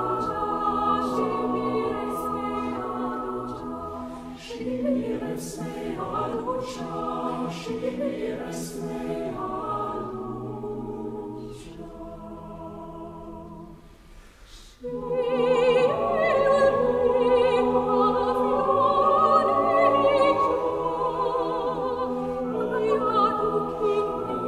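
Chamber choir singing a Romanian Christmas carol in sustained full chords. The singing softens, nearly fades out about fourteen seconds in, then comes back louder.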